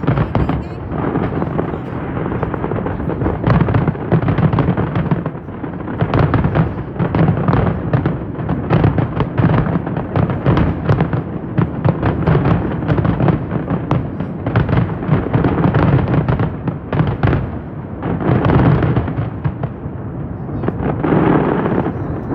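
Aerial fireworks going off in rapid, dense succession, a continuous run of booms and crackles with many bursts each second.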